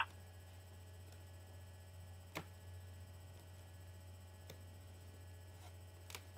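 Low steady electrical hum with a few faint clicks, the sharpest about two and a half seconds in and another near the end.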